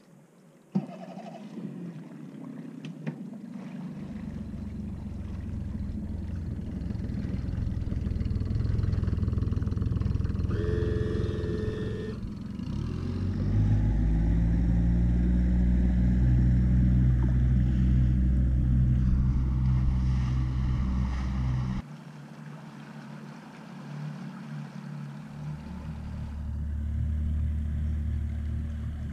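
Boat motor running steadily on the water, growing louder through the middle. It drops away abruptly about three-quarters of the way through, then picks up again.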